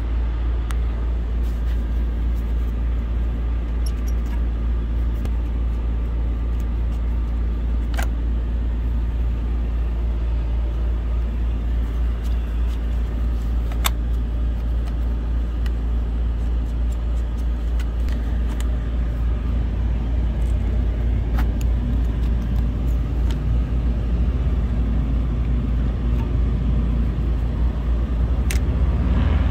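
Semi truck's diesel engine idling with a steady low hum. A few sharp metal clicks sound over it, near the middle and near the end, as grille clips are handled on the hood.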